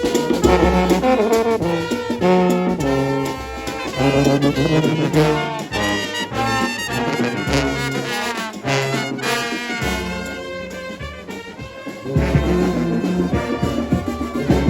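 Music led by brass horns over a bass line, with the bass dropping out for about two seconds near the end before coming back in.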